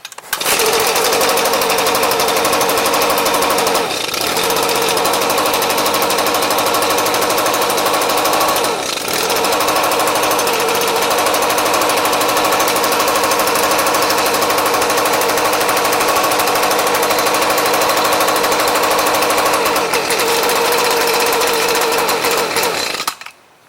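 Echo ES250 blower/shredder vac's small two-stroke engine running steadily, dipping briefly twice, then cut off abruptly near the end.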